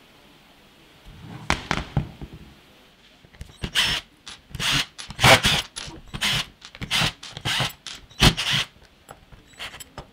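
Screwdriver turning out the screws of a plastic power-tool battery pack case: a run of short scratchy turns, about two a second, starting a few seconds in. A few knocks as the pack is handled on the bench before that.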